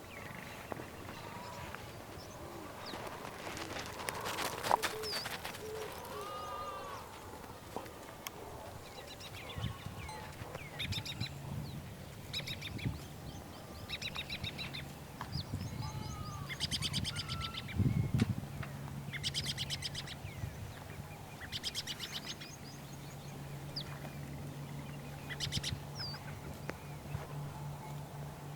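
Birds chirping and trilling: many short calls, sweeping notes and rapid trills. A low steady hum joins underneath about ten seconds in.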